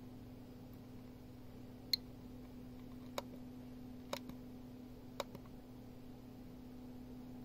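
Four sharp clicks from a GQ GMC-500 Geiger counter, about a second apart, the first and loudest about two seconds in with a brief high ring, over a steady low hum.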